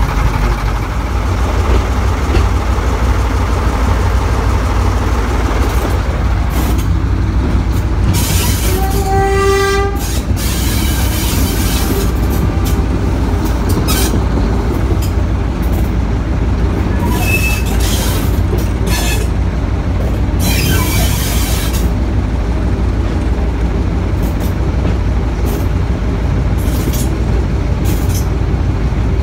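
Heritage diesel locomotive hauling a train, heard from aboard the coach: a steady low rumble of the engine and the wheels on the track with scattered clicks. Its horn gives one short blast about nine seconds in, and there are two brief bursts of hiss.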